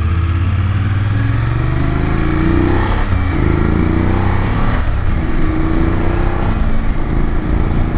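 BMW F750GS parallel-twin motorcycle engine accelerating through the gears, rising in pitch and dropping back at shifts about three and five seconds in, with wind noise on the bike-mounted microphone.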